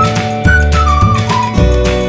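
Background music: a flute-like melody over steady chords, deep bass and a regular beat.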